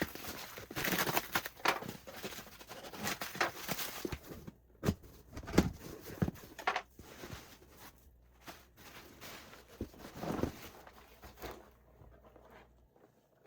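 Parcel being unpacked by hand: irregular rustling, taps and knocks of packaging. It is busiest in the first few seconds and dies away near the end.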